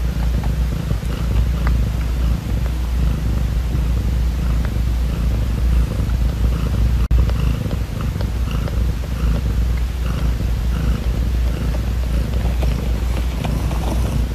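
British shorthair mother cat purring loudly and steadily while her newborn kittens nurse against her belly.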